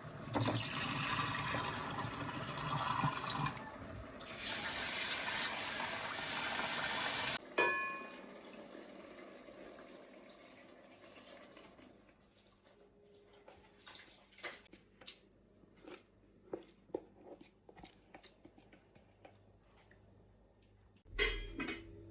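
Water running or pouring in two spells of a few seconds each, the second cutting off suddenly, followed by faint scattered clicks and knocks and a thump near the end.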